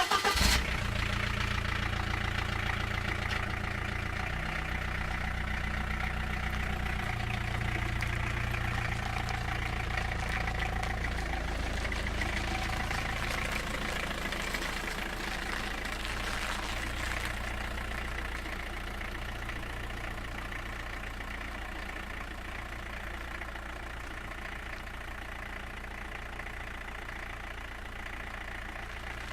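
An engine running at a steady idle, a low, even hum that eases off slightly in the second half.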